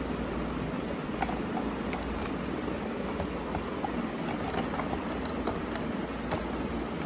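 Steady background hiss and hum, with scattered light taps and clicks as a card and a zippered camera case are handled on a glass tabletop.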